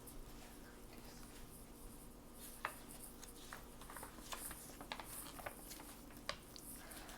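Faint handling noises: a scattering of soft clicks and light rustles, most of them in the second half.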